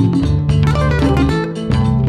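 Background music: lively acoustic guitar in a flamenco style, quick plucked notes and strummed chords over a steady bass.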